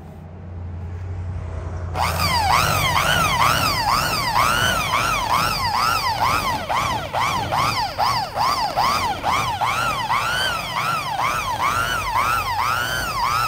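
Electric rotary polisher buffing a truck's painted hood. Its motor starts with a low hum, then about two seconds in it jumps to a loud whine that rises and falls in pitch about twice a second. This surging fits the variable-speed control that the owner says goes all or nothing.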